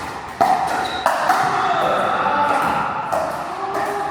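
Pickleball paddles striking the ball in a rally, several sharp pops a second or two apart, echoing in a large hall.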